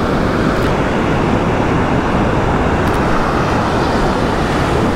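Ocean surf breaking close on a steep beach, a steady loud rush of waves washing up the sand.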